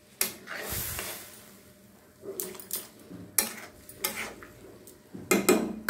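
A steel spatula knocking and scraping against a steel kadai while stirring a wet dal curry: a string of separate clinks and scrapes, with a quick cluster near the end.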